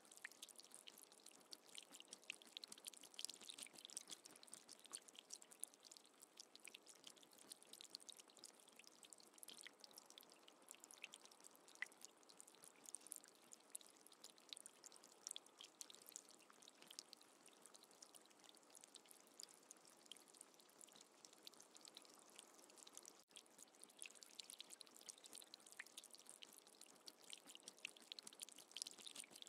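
Light rain falling into a puddle on a gravel path: a faint, steady patter of many small drops.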